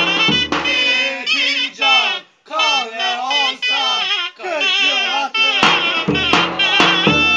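Davul and zurna playing a folk tune, dropping out about a second in so that a man sings an unaccompanied, ornamented phrase; the davul's strokes and the zurna come back in near the end.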